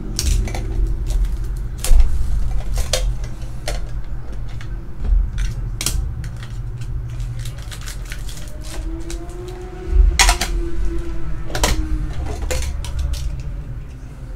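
Small metal Pokémon TCG Celebrations mini tins being handled and opened: scattered clicks and clinks of the tins and lids, with a sharp knock about two seconds in and another about ten seconds in.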